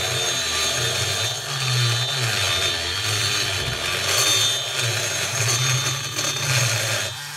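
A motor-driven right-angle dental lab handpiece spinning a carbide burr, grinding metal inside the ports of a two-stroke chainsaw cylinder: a steady high whine over a grinding hiss and a low hum that wavers with the load, easing off briefly near the end.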